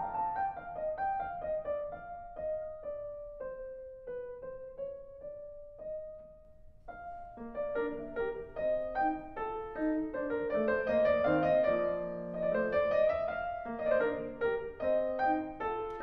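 Background piano music: a slow line of single notes that falls and grows quieter, then fuller chords come in about seven seconds in and the music grows louder.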